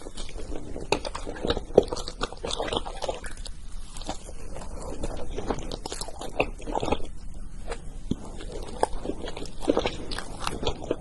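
Close-up eating sounds: someone biting and chewing crunchy food, a dense run of crisp crunches and clicks that comes in clusters.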